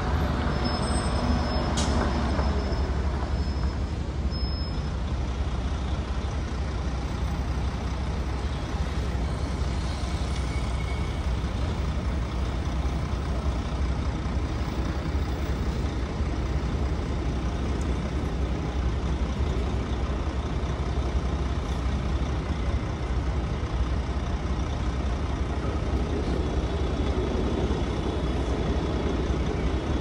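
Steady New York street traffic with a deep rumble of heavy vehicles such as trucks and buses running. A thin high squeal sounds for a few seconds near the start.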